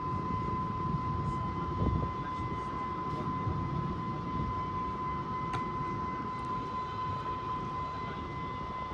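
Low, steady rumble of a train with a constant high-pitched tone sounding throughout.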